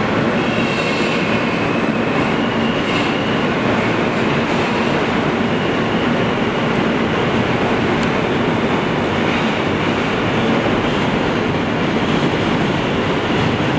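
Steady, loud running noise of a New York City Subway R160 car, heard from inside the car in a tunnel: wheels on the rails and the car's rumble, with a faint high whine in the first few seconds.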